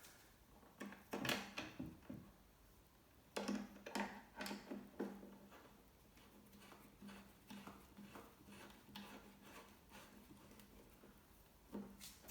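Small clicks, knocks and taps of screws, a screwdriver and plastic parts being handled while a washer dryer is reassembled, loudest in two clusters near the start, then lighter scattered taps.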